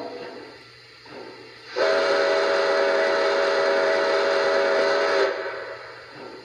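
One long steam whistle blast from the onboard sound system of a Lionel Pere Marquette 1225 Berkshire model locomotive: a steady chord of several notes with a hiss over it. It starts about two seconds in, holds for about three and a half seconds, and cuts off sharply.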